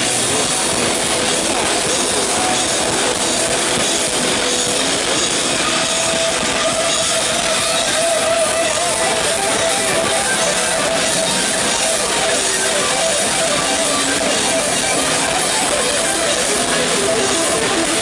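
Heavy metal band playing live: distorted electric guitars and drums in a dense, steady wall of sound.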